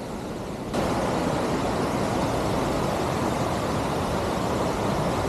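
Waterfall water rushing in a steady, even hiss-like rush that starts abruptly a little under a second in.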